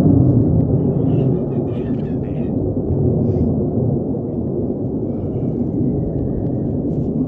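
Wind buffeting the microphone: a steady low rumble, a little louder at the start.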